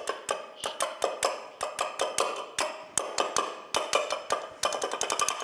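Sharp, irregular taps on a photo frame, picked up by a piezo buzzer glued to it as a contact microphone and played over a PA system, each tap with a short ringing; they come faster near the end. This is a homemade prototype acoustic rain gauge, with the taps standing in for raindrops.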